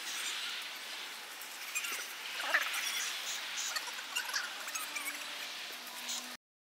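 Outdoor background hiss with scattered faint, short high squeaks. It cuts off suddenly near the end.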